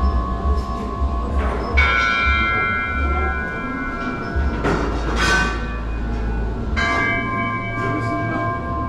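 Bells struck three times, each strike ringing on with several clear tones that overlap the next.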